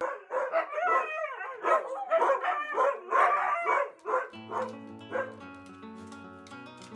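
Siberian huskies whining and yipping excitedly at a door, several high, wavering cries overlapping for about four seconds. Then background music with sustained notes comes in, with a few more short dog cries.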